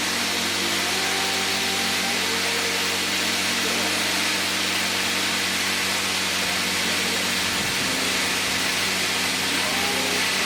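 Plasma cutter with a built-in air compressor running, giving a steady, even hiss of air over a constant low hum. Faint background music underneath.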